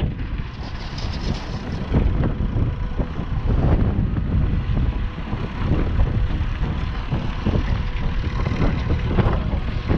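Massey Ferguson 399 tractor's six-cylinder Perkins diesel engine running as it pulls a tipping trailer slowly away, a steady low rumble that rises and falls unevenly.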